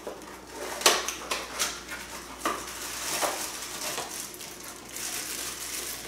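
Packaging being handled while a power adapter is unpacked from its box: plastic wrapping and paper rustling and crinkling, with irregular sharp clicks and taps.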